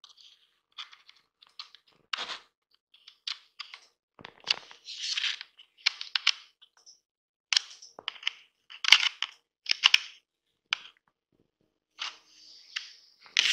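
Plastic clicking and scraping as a plastic pry tool works the latches of an instrument cluster's plastic housing, snapping them over the circuit board to hold it in place. Irregular short clicks with brief scrapes between them.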